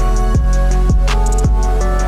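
Background music with a drum beat: deep bass kicks falling in pitch, about two a second, under hi-hat ticks and held notes.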